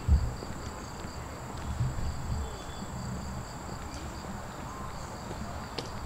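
A chorus of night insects trilling steadily at two high pitches, with occasional low thumps.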